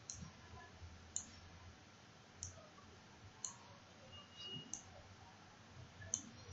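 Faint computer mouse button clicks, about six of them spaced roughly a second apart, as curve nodes and handles are clicked and dragged.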